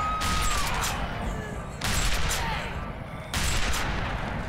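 Gunfire: four gunshots spaced one to one and a half seconds apart, each trailing into a long echo.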